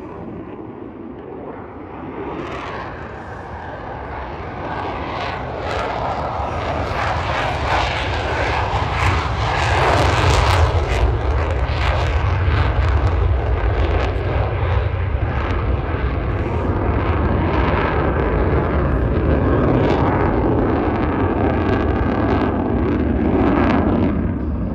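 Jet engines of Thunderbirds F-16 fighters in flight. The roar swells over several seconds as the jets come nearer, then stays loud.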